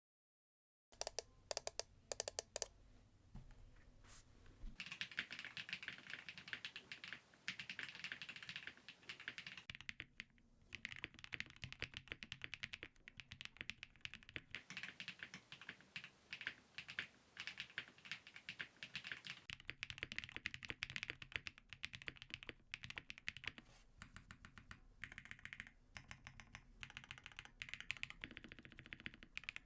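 Typing on a custom Space65 R3 mechanical keyboard with lubed and filmed MM Neon Cyan switches, an FR4 plate and GMK keycaps. It starts with a few separate keystrokes, then goes into fast continuous typing with one brief pause.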